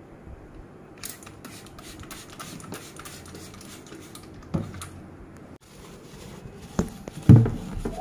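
Cleaning a plastic fridge crisper drawer with a trigger spray bottle: light clicks, spray squirts and scratchy rubbing on the plastic, with a few knocks, the loudest about seven seconds in.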